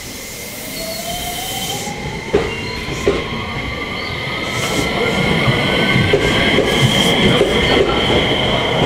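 JR West 227 series electric multiple unit pulling away from the platform. The traction motors give a whine that rises steadily in pitch as the train accelerates, over a growing rumble of wheels on rail, with two sharp clacks about two and a half and three seconds in.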